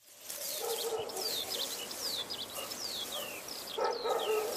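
Birds chirping: quick high calls that slide downward, several a second, over a lower murmur that swells briefly near the end. The sound fades in at the start.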